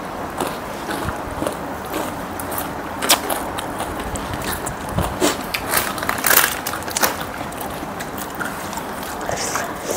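Eating and mixing bhelpuri from a plastic bowl: scattered short clicks of a spoon against the bowl, with crunches and rustles of the puffed-rice mix, over a steady low room hiss.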